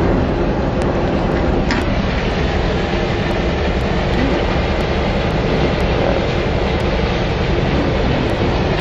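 Coal train hauled by GE C44AC (AC4400CW) diesel-electric locomotives, moving during unloading: a steady, loud rumble of the locomotives' V16 diesel engines and the rolling coal cars.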